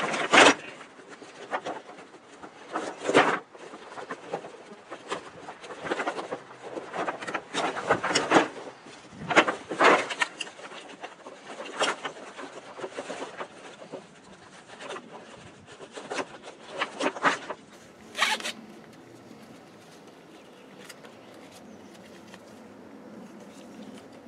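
Nylon webbing straps of a MOLLE rucksack being pulled and fed through their plastic buckles: a quick series of short scraping pulls, stopping about three quarters of the way through, after which only a faint steady background noise remains.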